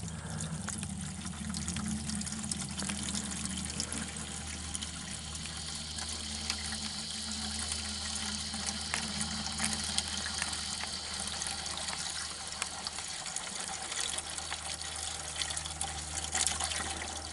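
Toilet flush water and waste pouring steadily out of the open end of a sewer drain line into a bucket, over a steady low hum. This is the first flush after the pipe joint's sharp angle was softened, and the flow is carrying a good amount of waste.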